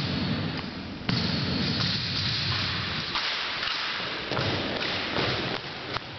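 Drill team's rifles slapped and thudded in unison during armed drill, sharp strikes echoing in a gymnasium. The loudest strike comes about a second in, with another near the end, and marching footsteps on the wooden floor follow as the cadets step off.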